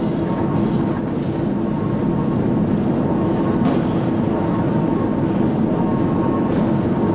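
Steady, dense rumble of forge-shop machinery, with a few faint knocks and clanks over it.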